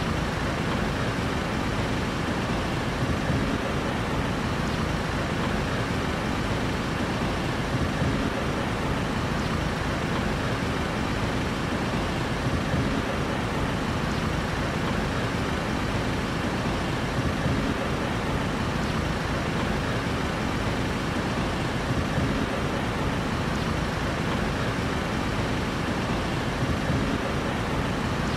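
Steady street traffic noise, a continuous low rumble of vehicle engines with no distinct passes or horns standing out.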